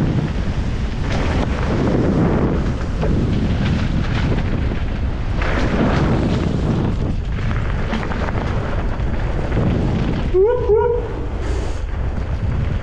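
Mountain bike descending a downhill trail: a steady low rumble of tyres on the track and wind buffeting the microphone, swelling and easing. About ten seconds in, a brief pitched sound slides up and down for about half a second.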